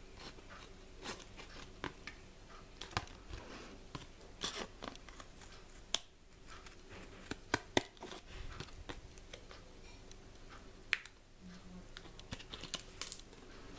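Scissors cutting through a cardboard-and-plastic blister pack for a memory card: scattered snips and crinkles of the packaging. A few sharper clicks stand out, about six, seven and a half and eleven seconds in.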